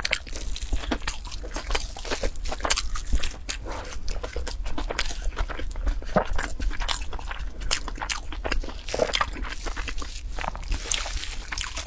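Person biting and chewing a crunchy food close to the microphone: many sharp, irregular crunches in quick succession.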